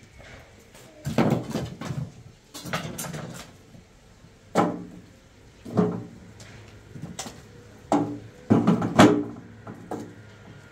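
A series of irregular knocks and thumps, about seven, each with a short ring after it; the loudest come near the end.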